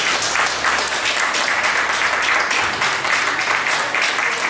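Audience applauding: dense, steady clapping just after an opera song ends.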